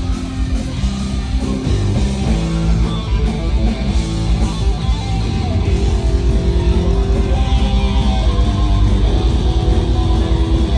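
Live heavy metal band playing loud and without a break, electric guitars holding sustained notes over a heavy bass end.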